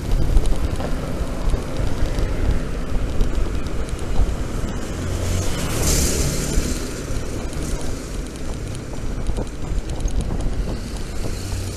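Wind rushing over the microphone of a rider on a moving electric scooter, with road and traffic noise and a brief louder hiss about six seconds in.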